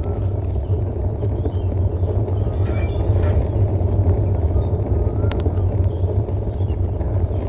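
Wind buffeting the microphone: a loud, steady low rumble, with a few faint high chirps over it.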